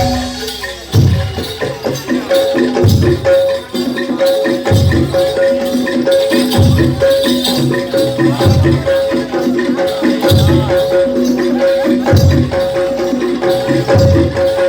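Live Javanese gamelan music accompanying a jaranan dance: metallophones play a fast repeating figure over deep strokes about every two seconds, with shaker-like jingling.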